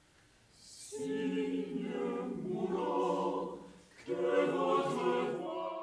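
Mixed choir of men and women singing a cappella: after a brief hush the voices enter about a second in, and a second phrase begins about four seconds in.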